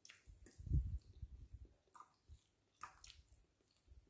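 A person chewing a mouthful of pasta and chicken stew, with wet mouth sounds, loudest just under a second in, followed by a few short smacks and clicks.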